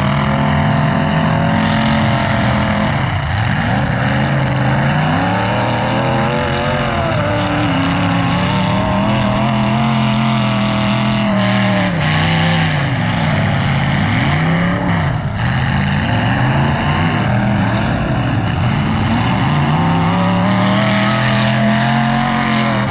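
Demolition derby cars' engines revving hard, their pitch rising and falling again and again as the cars drive around the arena.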